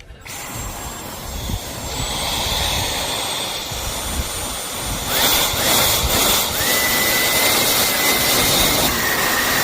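Dyson V12 Detect Slim cordless stick vacuum running: a steady high-pitched whine over rushing air. About five seconds in it gets louder and a second, lower whine joins.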